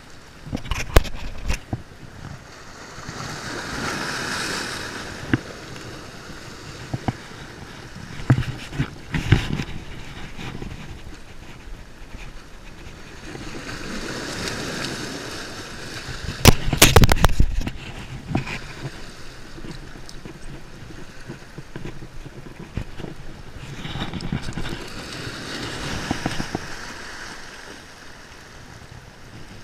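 Small waves washing up over rocks, swelling and falling back about every ten seconds, over a steady wash of surf. Several sharp knocks and bumps break in, the loudest cluster about seventeen seconds in.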